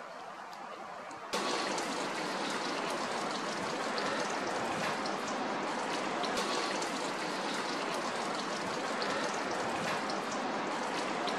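Rain falling steadily, a dense hiss of water with many small drop ticks. It gets suddenly louder about a second in and then holds steady.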